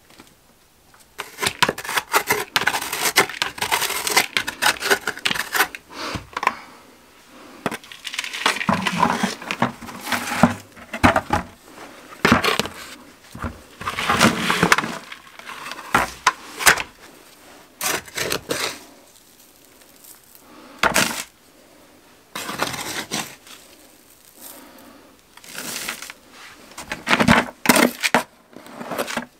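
Dry, gritty material rattling, crunching and scraping against plastic buckets as it is poured out and scooped by hand, in irregular bursts with short pauses between.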